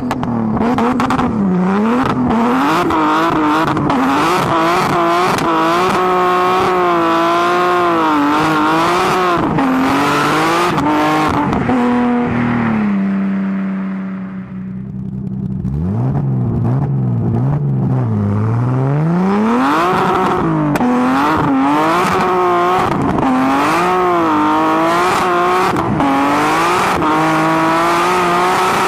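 BMW E30's engine driven hard, heard from inside the cabin: the revs rise and fall again and again through gear changes and throttle blips, settle briefly on a steady lower note about twelve seconds in, then climb hard again toward the top of the rev range.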